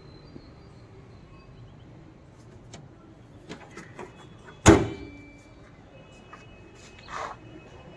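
The bonnet of a 2015 Maruti Suzuki Swift being slammed shut: a few light clicks as it is lowered, then one sharp metallic slam with a short ring about four and a half seconds in.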